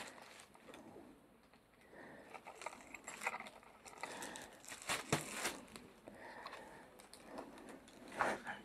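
Faint crinkling and rustling with a few light knocks, the sharpest about five seconds in: harvested aronia berries being handled for weighing.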